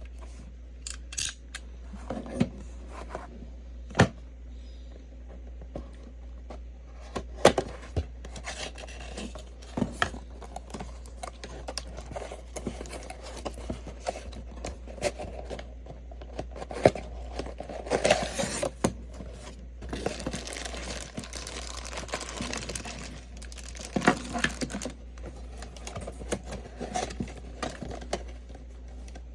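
Cardboard box and plastic packaging of a boxed anime figure being opened by hand: crinkling and tearing plastic with scattered sharp clicks and taps, over a low steady hum.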